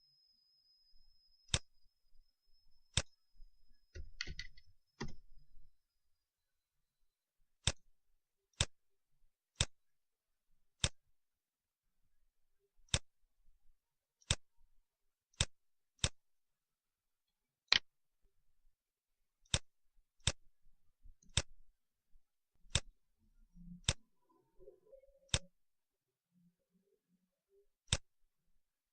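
Computer mouse clicking: single sharp clicks at irregular intervals, roughly one to two seconds apart. A faint high steady whine sounds through the first few seconds, and there is a brief rustle about four seconds in.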